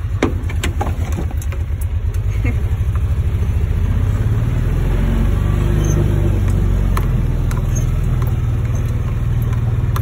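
Truck engine running, heard from inside the cab, a low rapid throb that builds over the first few seconds and then holds steady. A few sharp clicks near the start.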